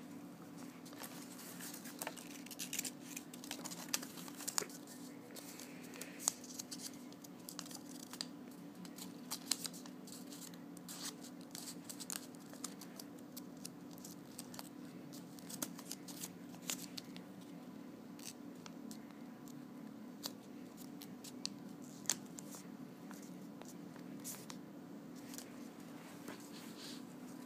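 Sticky-note paper being folded, creased and slotted together by hand: scattered crisp crinkles and rustles, busiest in the first half, over a steady low hum.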